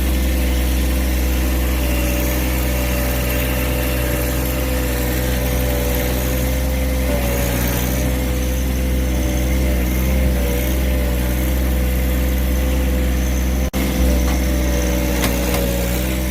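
John Deere 1023E compact tractor's three-cylinder diesel engine running steadily under hydraulic work with the backhoe, its pitch wavering slightly.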